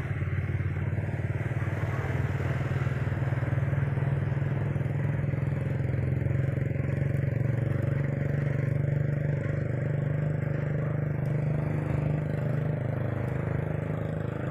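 Steady low rumble of wind and road noise on a phone held by a moving cyclist, mixed with the engine of a motorcycle tricycle running close alongside in traffic.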